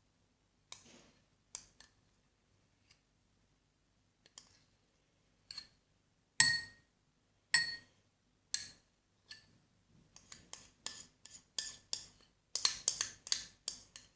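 Hard objects clinking and knocking against a small container: a few separate knocks, two of them with a short bright ring, then a quick run of clicks over the last few seconds.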